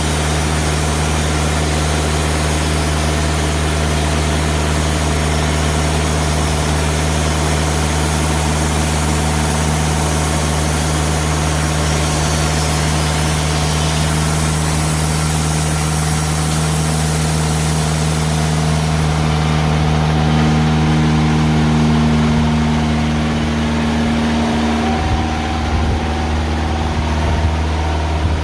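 Diesel engine of a TimberKing 2000 band sawmill running steadily while the bandsaw blade cuts through a large ash log. About two-thirds of the way in, the high cutting hiss drops away as the cut finishes, and the engine keeps running.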